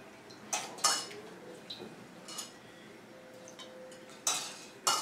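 Light metallic clinks of small ritual spoons (uddharani) against silver water vessels and plates, about six short clinks scattered through a few seconds.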